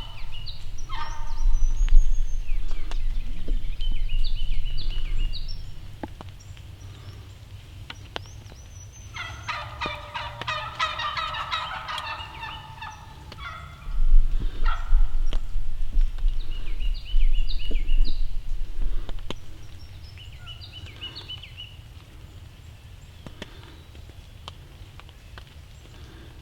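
A wild turkey gobbler gobbling, with one long rattling gobble about a third of the way in and a shorter one near the start. Songbirds sing short high phrases in between, and a low rumble comes and goes twice.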